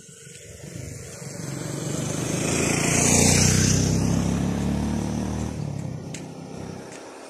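Motorcycle riding past, its engine growing louder to a peak about three seconds in and then fading away.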